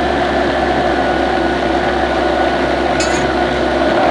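Blendtec blender motor running steadily at speed, puréeing cooked pumpkin.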